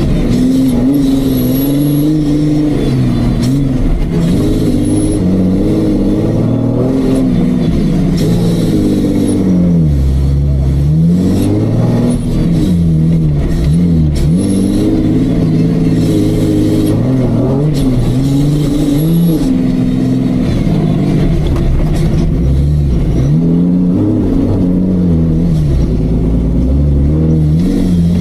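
Off-road Jeep engine revving up and falling back again and again under load, with several deep drops in pitch before it picks up again.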